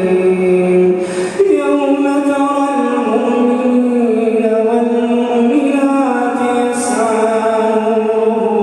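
A man chanting Quran recitation (tajwid) in long, melodic held notes whose pitch steps slowly up and down, with a short break about a second and a half in.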